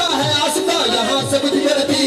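Music: a devotional Sufi kalam sung over a steady drum beat of about two strokes a second.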